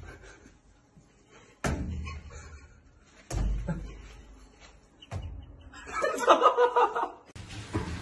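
Three dull thumps, each dying away, about one and a half seconds apart, then a person laughing. Near the end a louder, noisy sound begins.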